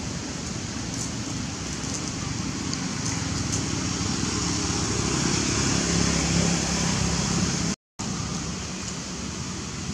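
A distant motor vehicle engine running over steady outdoor noise, growing louder to a peak about six seconds in and then easing off. The sound drops out completely for a moment near the end.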